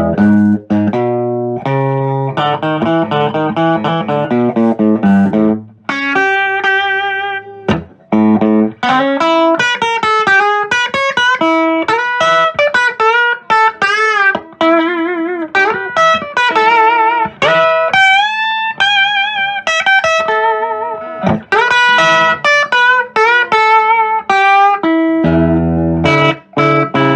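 Fender Big Apple Stratocaster electric guitar on its bridge humbucker, played through a home-built Fender Tweed Pro-style amp with four 8-inch speakers. About five seconds of picked chords, then single-note lead lines with vibrato and string bends.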